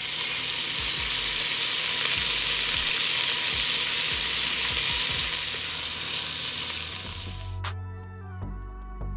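Chopped red onion sizzling loudly in hot fat in a pot, a steady frying hiss. About seven and a half seconds in the sizzle drops away and background music with a beat comes in.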